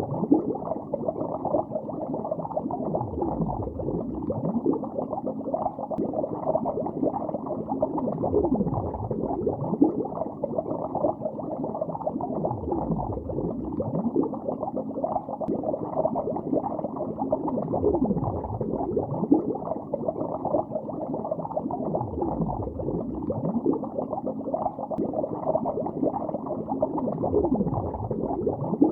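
Continuous bubbling heard underwater: a muffled, dense stream of bubbles with no high end, and a low sweep that dips and swells about every four to five seconds.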